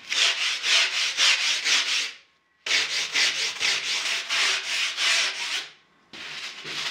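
Hand-sanding the rail of a foam surfboard blank: quick back-and-forth rubbing strokes, about four or five a second, in two runs broken by short pauses.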